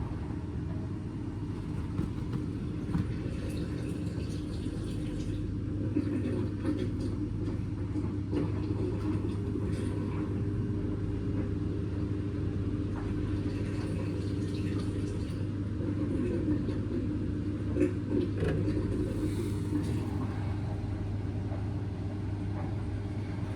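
Indesit washing machine running on its baby cycle: a steady low hum and rumble with a constant tone above it and a few light knocks, the sharpest a little before three-quarters of the way through.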